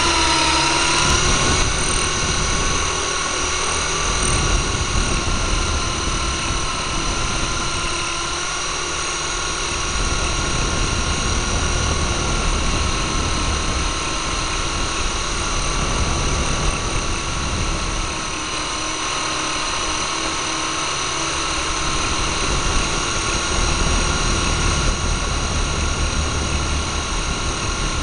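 Syma S022 Chinook toy R/C helicopter in flight, its small electric motors and rotors whining steadily at close range, the pitch wavering slightly, over a low rumble of air.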